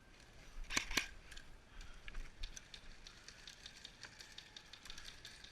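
Airsoft guns firing: two sharp shots close together about a second in, then a string of fainter, irregular clicks.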